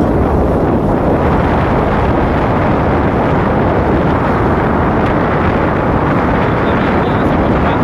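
Steady wind rush over the microphone of a moving motorcycle, with the bike's engine and road noise underneath.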